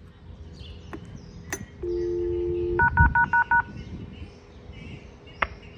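Railway station help point's train information button pressed with a click, then a steady one-second low tone followed by five quick two-tone beeps like telephone dialing, as the unit connects to its automated departures announcement.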